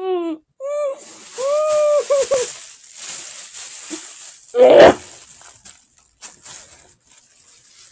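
Muffled pitched voice sounds from a mouth crammed with marshmallows in the first couple of seconds. A little under five seconds in comes one loud, short, wet burst as the marshmallows are spat into a plastic shopping bag, followed by faint crinkling of the bag.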